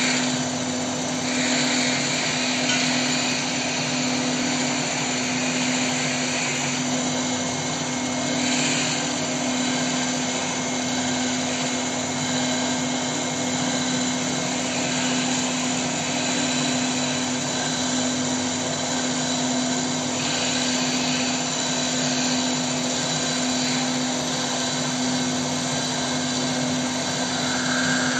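Goodcut 1530 single-axis double-knife CNC wood lathe running, its cutter hollowing out the inside of a spinning wooden bowl blank: a steady machine hum with one constant low tone, under the hiss of the blade shaving wood.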